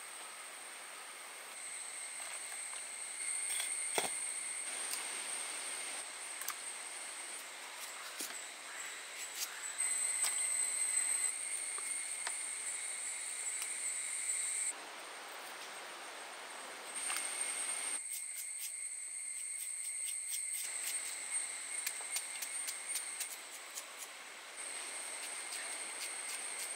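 A large kitchen knife slicing garlic and then chopping green chillies on a wooden board, with scattered cuts at first and a fast run of chopping taps in the second half. Behind it runs a steady, high-pitched insect drone that drops out and comes back.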